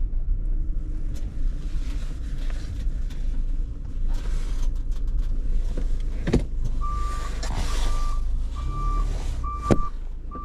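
Service vehicle's engine running at low speed, with a couple of sharp knocks. About seven seconds in its backup alarm starts, beeping evenly a little more than once a second as the vehicle reverses.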